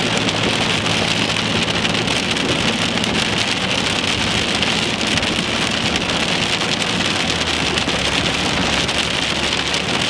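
Heavy rain pelting the roof and windshield of a moving car, heard from inside the cabin as a dense, steady patter, with a low hum of engine and road noise underneath.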